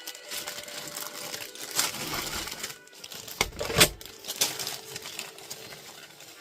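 Plastic Lego parts bag crinkling as it is handled and opened, with small plastic pieces clicking and clattering; one sharp click about four seconds in is the loudest.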